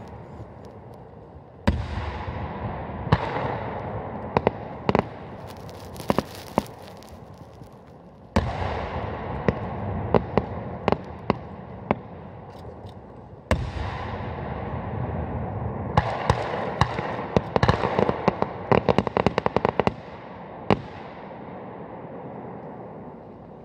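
Aerial firework shells bursting: three heavy booms, each fading away in a long rolling echo, with scattered sharp cracks between them and a dense run of rapid crackling pops in the later part.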